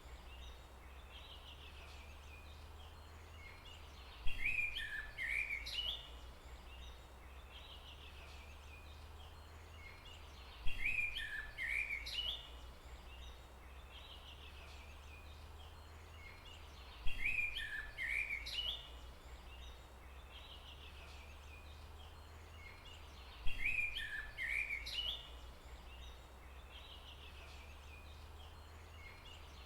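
A songbird singing the same short, quick phrase of chirping notes about every six and a half seconds, over a steady low rumble of background noise.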